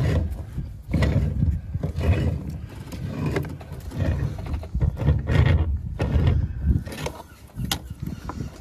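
Rotten deck timber on a wooden boat being forced off with heavy tools: irregular low rumbling and straining, with a couple of sharp knocks near the end.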